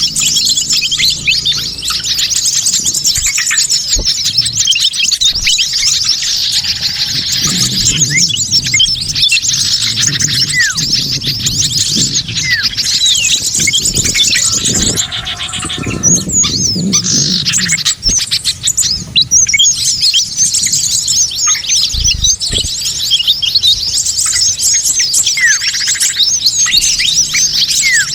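A dense, busy chorus of many small birds chirping and twittering over one another without a break: a mixed bird-lure call recording made to draw in wild small birds.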